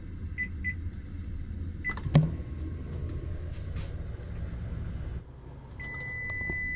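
Over-the-range microwave oven: short keypad beeps as it is set, then its steady low hum while heating, with a sharp click about two seconds in. The hum stops about five seconds in and a long steady beep follows near the end, the signal that the heating cycle is done.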